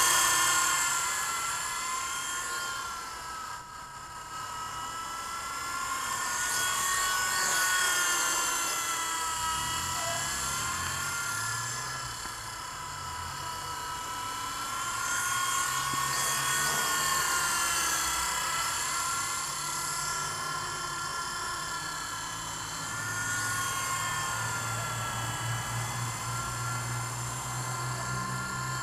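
WLtoys V912 radio-controlled helicopter in flight: a high electric whine from its motors and rotor that keeps wavering up and down in pitch as the throttle changes, growing louder and fainter as it moves about.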